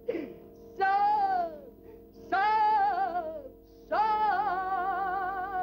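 Cartoon soundtrack music: a high voice sings three long notes with a wide vibrato over a held accompaniment chord, the third note sustained longest.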